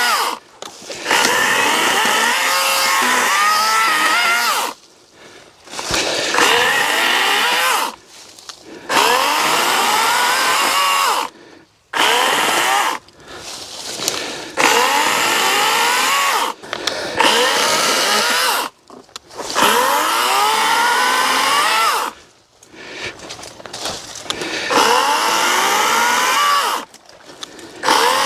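Wild Badger Power 40-volt battery electric chainsaw cutting branches in about a dozen short bursts, the trigger squeezed and released between cuts. The motor's whine rises in pitch as it spins up, and it cuts off sharply at each release.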